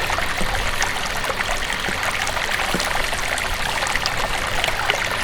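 Running water trickling and babbling steadily, with many small irregular splashes, like a small stream.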